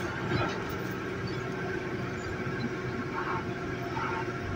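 Diesel engine of a BAUER BG36 rotary piling rig running steadily.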